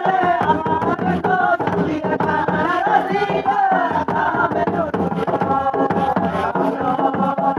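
Group singing of a Karam folk dance song, several voices chanting together, with a large barrel drum beating along.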